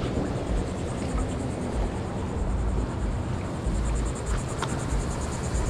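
Wind rumbling and gusting on the microphone outdoors, with a faint, rapid, high-pitched pulsing that joins about halfway through.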